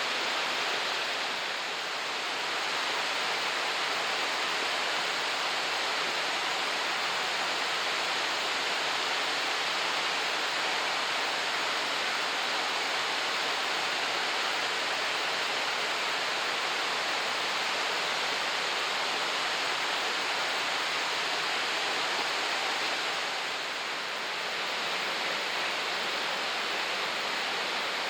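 Steady rushing of a tall waterfall, water falling and splashing in a constant even roar, with slight dips in level about 2 s and 24 s in.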